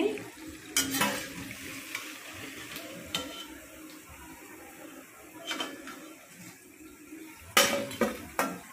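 Bondas frying faintly in hot oil, with metal clinks of a slotted steel spoon against the kadhai and a steel plate. The loudest clatter comes near the end, as the fried bondas are lifted out and set down on the plate.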